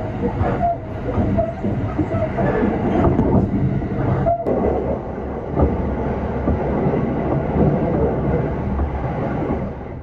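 Passenger train running, heard from inside the carriage: a steady rumble of wheels on track. It drops out briefly about four seconds in.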